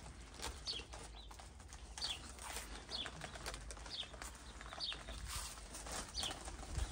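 A songbird singing: one short, high, falling chirp, repeated about once a second.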